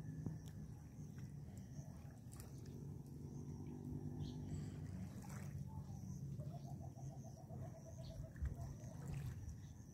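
A low steady motor hum, with an animal call partway through: a quick run of about a dozen short, evenly spaced notes lasting just over a second.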